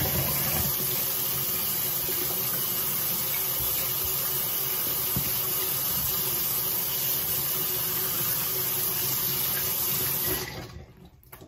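Bathroom sink tap running steadily into the basin, then turned off about ten seconds in.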